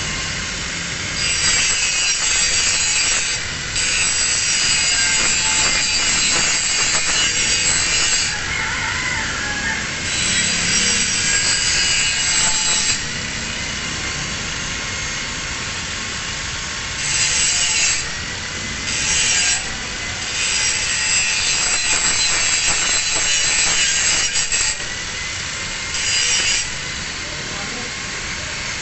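Angle grinder grinding a single bevel on the edge of a steel plate. The disc bites the metal in repeated passes lasting one to four seconds each, and the grinder runs in between.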